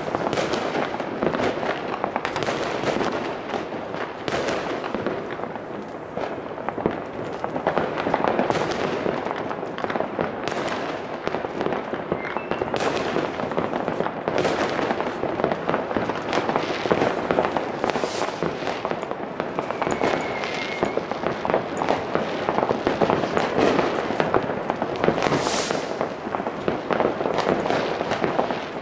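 Fireworks and firecrackers going off without pause: a dense, unbroken crackle of many overlapping bangs.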